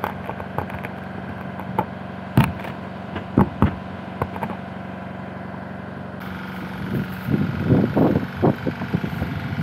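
A tractor engine running steadily, a constant low hum, with a few sharp clicks in the first half. From about seven seconds in, irregular footsteps and rustling through long grass come over it.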